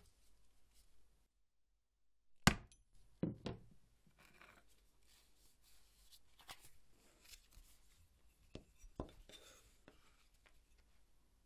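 A round steel hollow punch struck with a mallet on a plastic cutting board: one hard, sharp blow, then two more in quick succession, cutting a semicircle from the leather's edge. Softer clicks and rustles follow as the leather and punch are handled.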